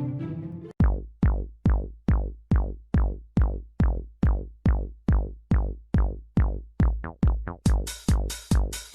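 Background music: a melodic passage cuts off under a second in and gives way to an electronic dance beat of booming kick drums, about two and a half a second, with hi-hats joining near the end.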